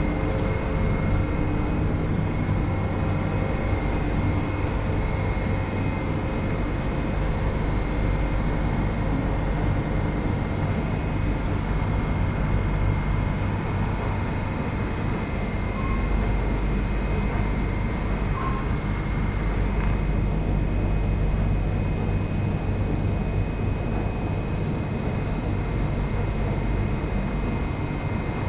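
Steady hum and whir of a Singapore MRT Circle Line train standing at an underground platform with its doors open, its air-conditioning and electrical equipment running, with a thin high whine throughout. The hiss over it thins about twenty seconds in.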